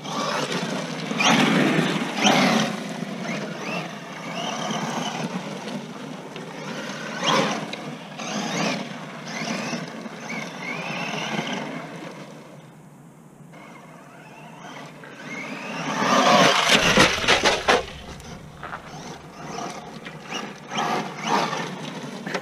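Redcat TR-MT10E electric 1/10-scale RC monster truck running on a 3S battery: the motor whine rises and falls as the throttle is worked, with tyres churning loose dirt. It grows loud in several passes, about a second in, around seven seconds and near sixteen seconds, with a short lull in between.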